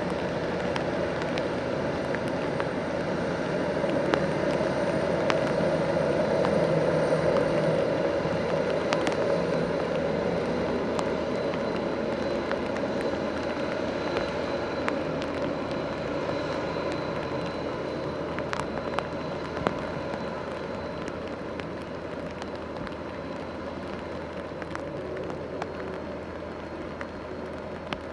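Jet airliner's engines running, a broad rumble with a faint high whine that swells to its loudest about seven seconds in and then slowly fades. Rain pattering with scattered sharp drops.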